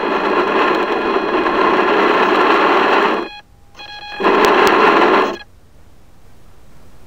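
Small electric motor of a model boat running with a steady buzzing whine, cutting out about three seconds in, running again for about a second, then stopping, leaving only a faint hiss of water.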